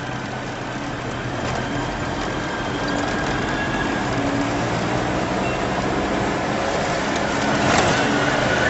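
Vehicle in motion heard from inside the cabin: engine running with steady tyre and road noise, growing a little louder near the end.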